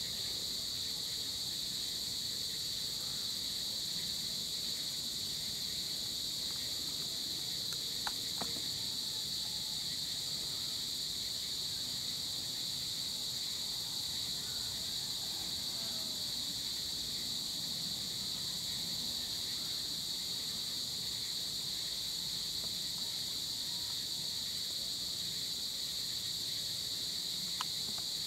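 Chorus of crickets and other insects: a steady high-pitched shrill that never pauses, over faint low background noise, with two faint ticks, one about eight seconds in and one near the end.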